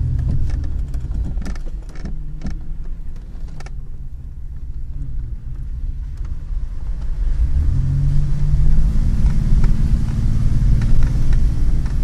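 Ford Explorer 4x4 driving over a rough dirt track, heard from inside the cabin: a low engine rumble with sharp knocks and rattles from the body and suspension over the first few seconds, then the engine pulling harder and louder from about eight seconds in.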